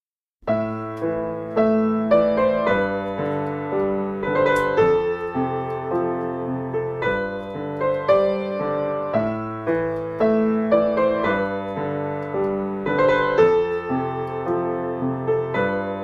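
Background keyboard music with a piano sound: a melody over held chords that starts about half a second in, its phrase repeating after about eight seconds.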